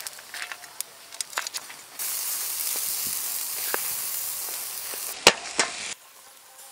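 Snails in their shells sizzling on a grill: scattered crackles and clicks at first, then a steady sizzle from about two seconds in that stops suddenly about six seconds in, with two loud sharp clicks shortly before it ends.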